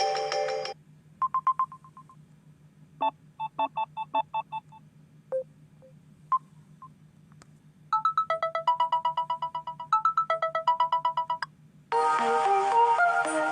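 Samsung tablet ringtones played one after another: several short electronic melodies and chime patterns, each stopping after a second or a few, with quiet gaps between. A fast run of notes comes in the second half, and a louder, fuller melody starts near the end.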